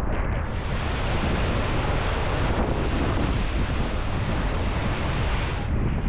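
Whitewater rushing and breaking around a packraft running Class II–III rapids, with wind buffeting the microphone throughout.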